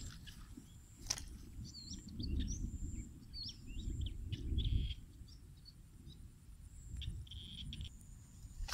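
Birds chirping in short, quick calls over a gusty low rumble of wind on the microphone, with a steady high insect drone behind and a sharp click about a second in.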